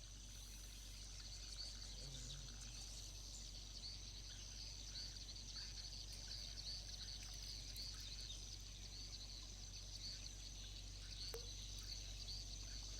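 Many swiftlets twittering at once in a dense, continuous stream of short high chirps, over a steady high insect drone and a low steady hum.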